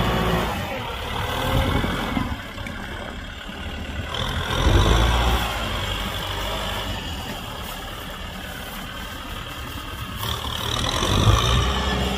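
Kubota M6040 SU tractor's diesel engine running under plowing load, its note swelling louder about five seconds in and again near the end.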